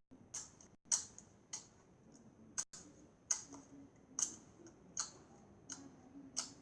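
Slime being squeezed and poked, giving a string of sharp little clicking pops, roughly one or two a second at an uneven pace, played back quietly from a slime ASMR video.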